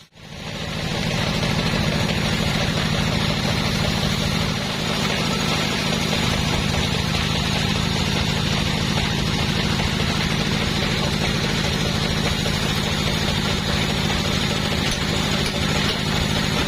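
Two-stroke chainsaw running steadily, fading in at the start and dropping slightly in pitch about four and a half seconds in.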